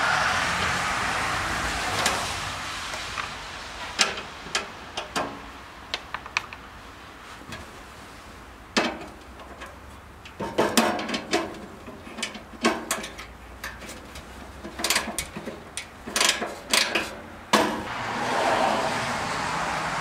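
Scattered sharp metallic clicks and knocks from a wrench and nuts on the wood chipper's chute bolts as they are undone. A passing car's road noise swells and fades at the start and again near the end.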